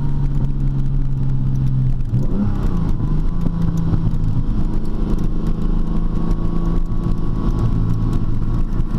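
TVR T350's 3.6-litre Speed Six straight-six engine running steadily. Its note shifts and settles slightly higher about two seconds in.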